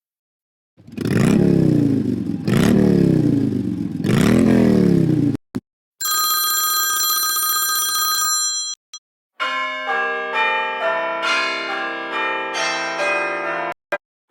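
iPhone XR alarm tones playing back to back. First come three rising-and-falling swoops that sound like an engine revving. A steady ringing tone follows for about two seconds. Near the end there is a quick run of melodic chime notes.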